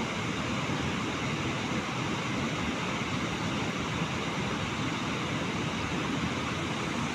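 Steady, even rush of fast-flowing river water churning below a dam where it has just fallen over the weir.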